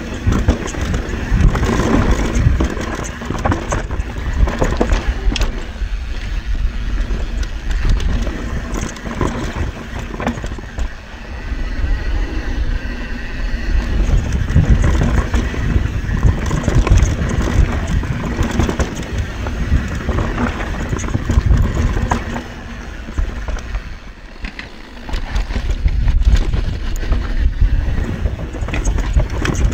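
YT Tues CF Pro 2019 downhill mountain bike descending a rough trail at speed, recorded up close by its mounted action camera: tyres rolling over dirt and rocks, with a constant rattle of knocks from the chain and suspension, and wind buffeting the microphone. The noise eases briefly twice, about ten seconds in and near the end.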